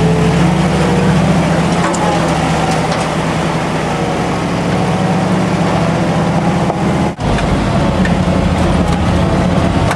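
The engine of a 1950s Ford 4x4 pickup running steadily at low speed, heard from inside the cab, with scattered knocks and a brief dropout about seven seconds in.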